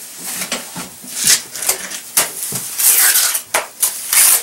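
Steel trowel scraping and spreading cement plaster on a cellar wall in irregular, repeated strokes.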